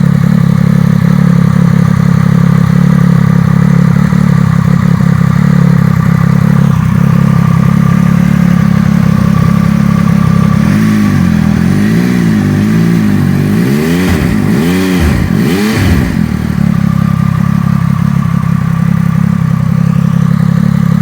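Triumph Speed Triple 1200 RS inline three-cylinder engine through an aftermarket MV Agusta exhaust: it idles steadily, is blipped in a series of quick revs about halfway through, then settles back to idle.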